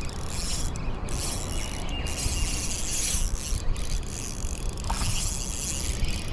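Shimano Stradic FL 1000HG spinning reel being cranked, its gears whirring in stretches broken by brief pauses, as line is wound in on a hooked fish.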